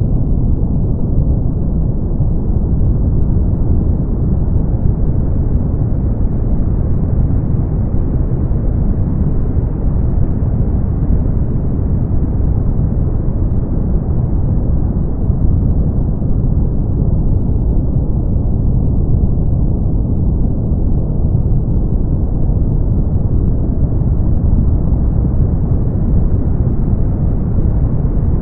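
Brown noise: a steady, deep hiss, heaviest in the bass and thinning out toward the treble, its upper edge slowly brightening and dulling again over about twenty seconds.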